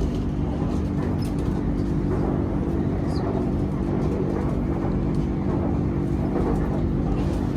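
BTS Skytrain EMU-B1 train running between stations, heard inside the carriage: a steady rumble with a constant low hum.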